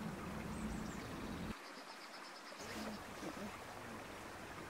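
Faint riverside ambience beside the fast-flowing incoming tide: an even hiss of moving water under a low rumble that cuts out abruptly about a second and a half in and comes back a second later, with faint distant voices.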